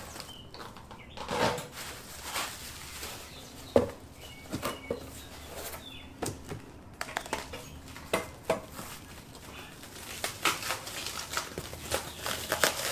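Rustling and scattered clicks of packaging and parts being handled, with one sharper knock a little under four seconds in.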